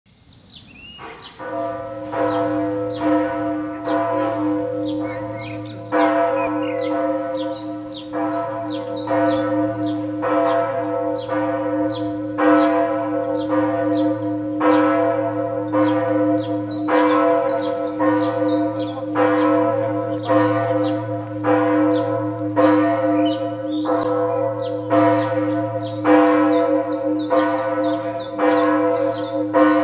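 The Lullusglocke, the 11th-century bronze bell in the Katharinenturm, is swinging and ringing. It starts about a second in, and its clapper strikes in a steady, even rhythm over a low hum that keeps sounding between the strokes.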